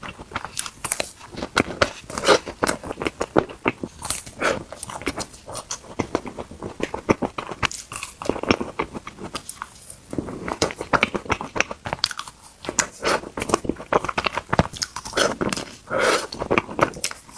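Ice cream being bitten and chewed close up, with many crisp, irregular crunches.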